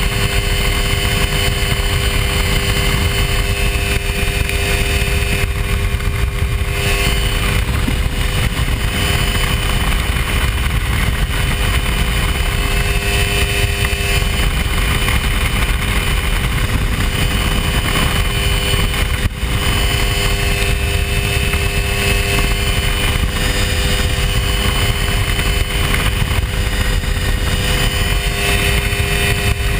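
Hy-Tek Hurricane ultralight's engine and propeller running steadily at cruise in flight, with a constant drone and a loud low rush, and a brief dip about 19 seconds in.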